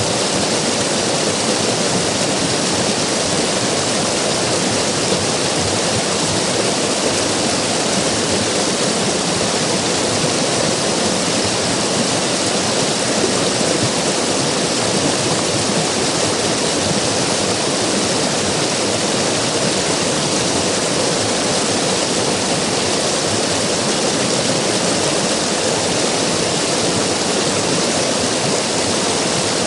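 River water rushing and splashing in a steady, dense roar.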